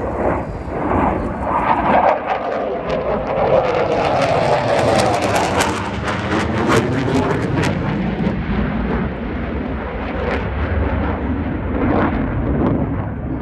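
Dassault Rafale fighter jet, its twin Snecma M88 turbofans, passing low overhead under high power: a loud rushing jet noise that sweeps down and back up in tone as it goes by, with sharp crackles mostly in the middle.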